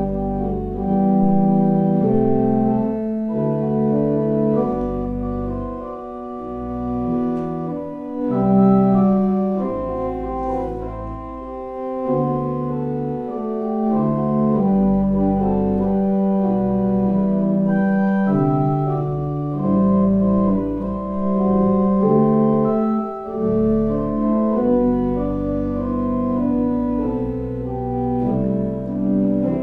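Church organ playing a slow piece in held chords that change every second or two, over a deep bass line.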